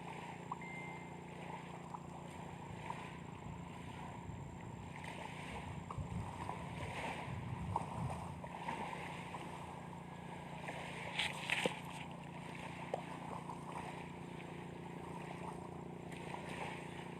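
Steady low motor hum under a haze of wind and water noise, with a few faint knocks and a brief hiss about eleven seconds in.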